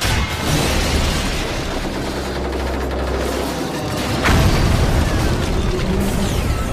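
Cartoon crash and explosion sound effects as a giant robot comes down: a loud boom at the start, a low rumble, and a second sharp crash about four seconds in, over music.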